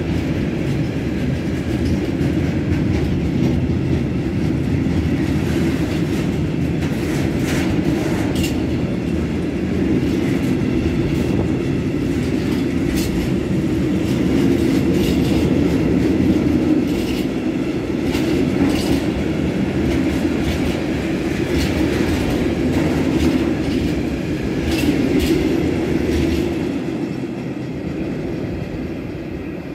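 Freight train of tank wagons rolling past at close range: a steady rumble of wheels on rail with repeated clicks over the rail joints. It fades over the last few seconds as the last wagon goes by.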